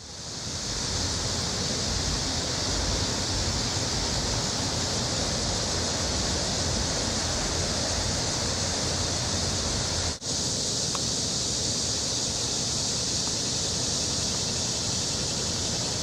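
Steady chorus of cicadas, a dense high buzz, over a low rumble, cutting out briefly about ten seconds in.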